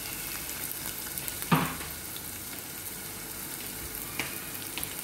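Freshly chopped onions sizzling steadily in hot oil in a saucepan, the start of frying them down to golden brown. A single sharp knock sounds about one and a half seconds in.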